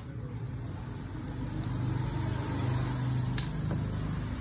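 A low motor-vehicle rumble that swells over the middle couple of seconds and then fades. A sharp metallic tick comes about three and a half seconds in, from small-screwdriver work on a baitcasting reel.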